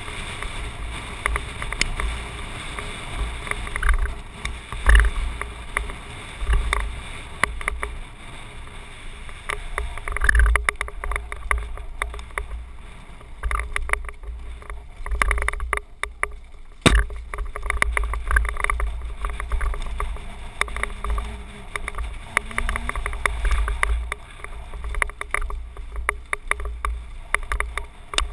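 Wind buffeting an action camera's microphone on a descending mountain bike, with a steady low rumble, the rattle and clatter of the bike over a rough, stony dirt trail, and tyres on gravel. There is one sharp knock about seventeen seconds in.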